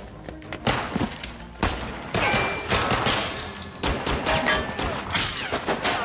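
Pistol gunfire exchanged in a shootout, about a dozen sharp shots at irregular spacing, some in quick pairs, over tense background music.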